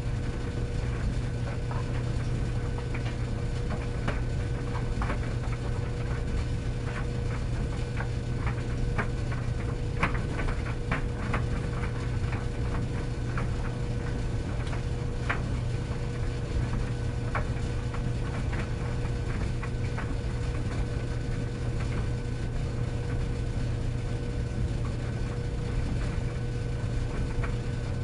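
Tumble dryer running: a steady low motor hum with irregular light clicks and taps as the load tumbles in the drum.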